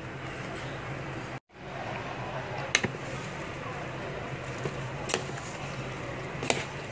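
A plastic rice paddle scraping and knocking against a rice cooker's non-stick inner pot while mixing cooked biryani rice, with three sharp clicks spread through it over a steady low hum. The sound cuts out completely for a moment early on.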